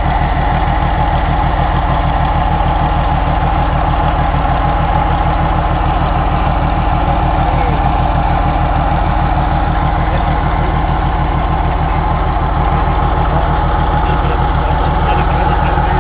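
Engine of heavy machinery running steadily at a constant speed, with an even low pulsing.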